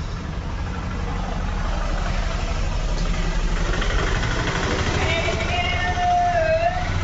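A low, steady engine running, like a vehicle idling, growing gradually louder. About five seconds in, a single drawn-out pitched sound is held for a second and a half and dips in pitch before it stops.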